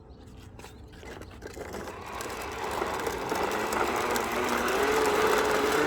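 A motor running steadily with a whirring hum that grows louder over several seconds.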